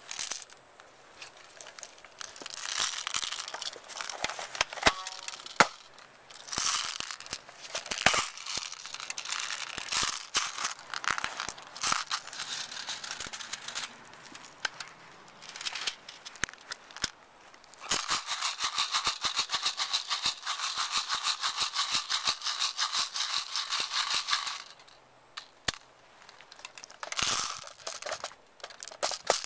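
Airsoft skirmish noise: rustling movement with scattered sharp clicks and snaps, and a fast, even rattle lasting about six seconds past the middle.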